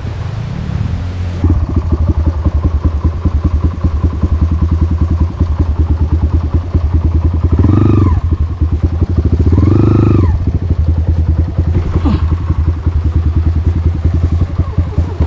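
Dirt bike engine running close by with a steady, rapid exhaust pulse, louder about a second and a half in. The throttle is opened twice a few seconds apart, the revs rising and falling each time, then once more briefly.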